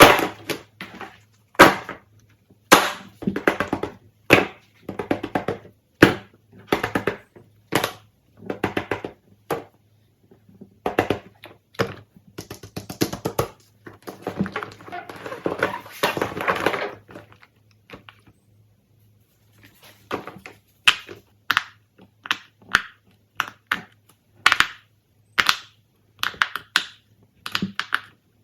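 Plastic fidget toys being handled: a quick run of sharp clicks, pops and knocks, with a few seconds of dense rustling a little past the middle and a brief pause before the clicking resumes.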